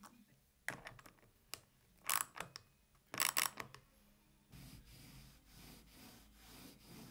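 Small steel ball bearings clicking as they are fitted onto a steel bolt, then two short bursts of metallic clattering as the bearing stack is tightened down with a socket driver. From a little past halfway, a soft steady rubbing as the wooden jig with its bearing guides slides along the edge of the bench board.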